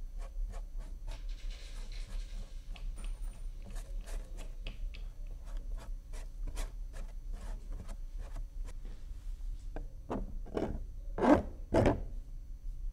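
Bristle paintbrush dabbed repeatedly against a stretched canvas, quick taps about two to three a second, with a few louder strokes near the end.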